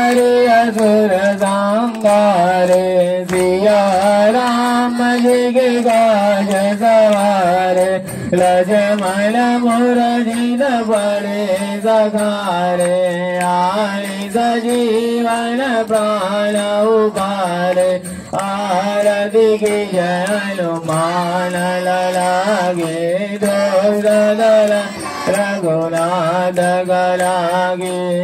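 Devotional aarti to Ganesha, a melody sung in Hindi over a steady held drone that changes pitch only now and then.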